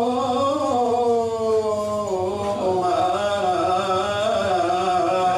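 A man singing an Epirote moiroloi (lament) in long, drawn-out notes that sink slowly in pitch with small wavering ornaments.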